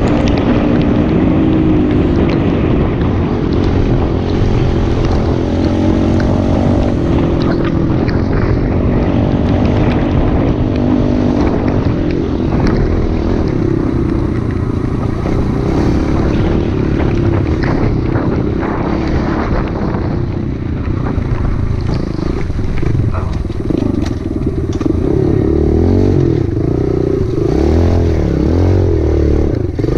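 Dirt bike engine running along a trail, its pitch rising and falling with the throttle, over a low rumble of wind on the microphone and the rattle of the bike over rough, muddy ground.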